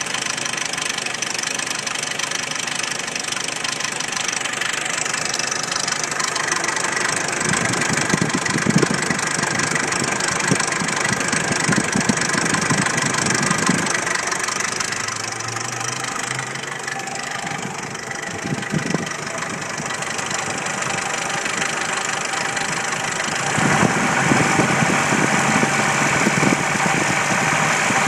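1993 Jeep Wrangler YJ's stock 2.5L four-cylinder engine running with a nasty knock, growing louder near the end. The owner suspects the valves, piston slap or the timing chain tensioner.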